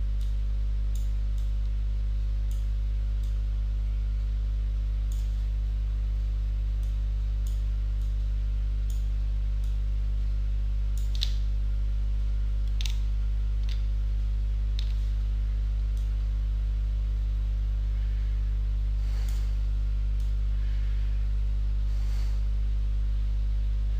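Steady low electrical mains hum from the recording setup, with irregular scattered clicks of a computer mouse and keyboard as UV vertices are selected and moved in Blender.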